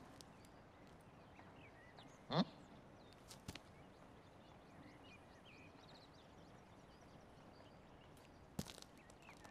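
Faint soundtrack hiss, with one short, rising whimper from a man about two seconds in and a few faint clicks.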